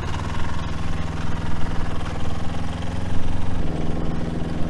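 An engine running steadily under load, its note shifting slightly about three and a half seconds in, while a machine moves a load of fig logs.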